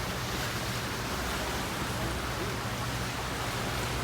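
Steady low hum of a cruise boat's twin Volvo Penta diesel engines under way, with a constant rush of wind and water noise over it.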